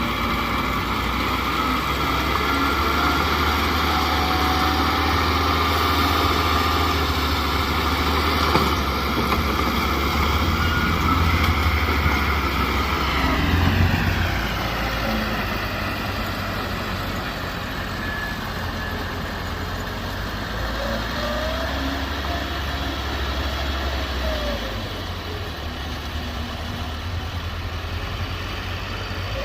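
Heavy diesel engine of earthmoving machinery running steadily under load, its revs falling away about halfway through and then running more lightly.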